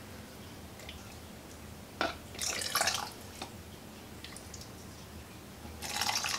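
Hot soup ladled through a plastic canning funnel into a glass quart jar: a clink of the ladle about two seconds in, then a short splash of liquid pouring, and a second, longer pour near the end.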